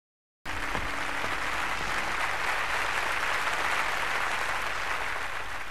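Audience applauding: a steady round of clapping that starts abruptly about half a second in and fades out near the end.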